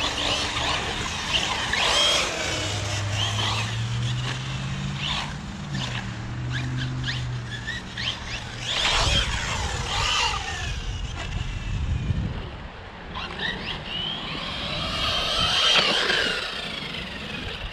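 Electric RC car's brushless motor whining as it speeds up and slows down over and over, with tyre noise on concrete. A low steady hum runs under the first half.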